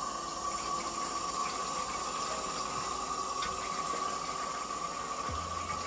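Filtered water from a kitchen tap running in a thin, steady stream into a stainless steel bowl, filling it. A low hum comes in near the end.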